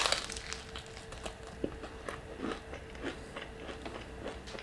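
A bite into crispy Nashville hot fried chicken, then close-up chewing with many small irregular crunches of the fried crust.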